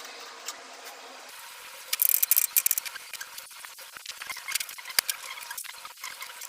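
Irregular sharp clicks and scrapes of hand work on machine parts, with a quick loud cluster of them about two seconds in; a steady hum stops just before.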